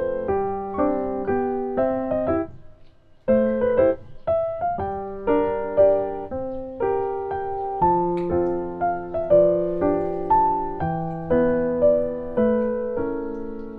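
Background piano music: a gentle melody over chords, with a brief pause about three seconds in.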